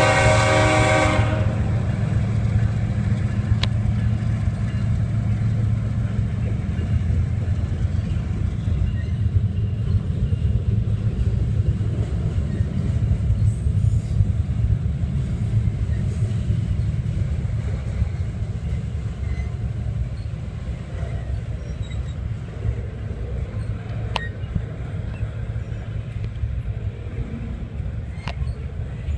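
CSX freight train of double-stack container cars rolling past, a steady low rumble with occasional wheel clicks, easing off over the last third. A locomotive horn blast cuts off about a second in.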